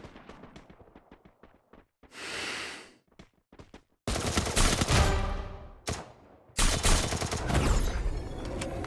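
Gunfire sound effect, rapid shots in short bursts. It opens with faint ticks and a brief hiss, then comes in loud twice, about four seconds in and again near seven seconds.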